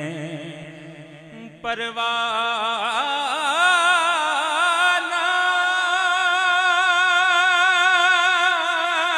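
A man singing a naat into a microphone. The previous phrase trails off, and from about two seconds in he holds one long, wavering note with heavy vibrato.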